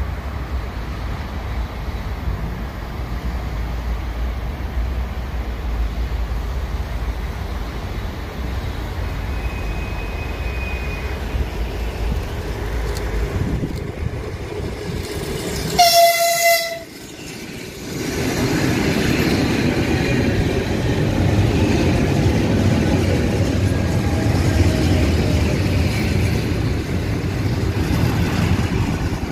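EP3D electric multiple unit approaching and running in close alongside. A low rumble early on gives way, about halfway through, to one short blast of the train's horn, a single tone lasting about a second. After the horn the train's rumble and wheel rattle are louder as it comes alongside.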